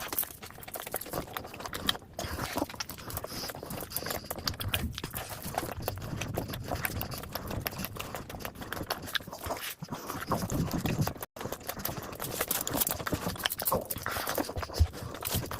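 Close-miked eating sounds: chewing and wet mouth clicks, with light taps, going on without pause. They break off for a moment about two thirds of the way through.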